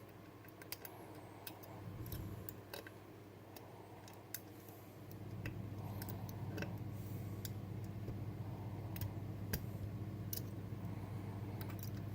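Lock picks working the sliders of a Bellock cam lock: irregular light metallic clicks and ticks. A steady low hum comes in about five seconds in and stays under the clicks.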